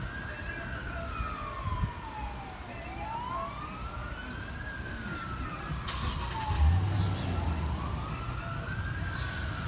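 Emergency vehicle siren on a slow wail, its pitch rising and falling about once every four seconds. A brief low rumble comes about seven seconds in.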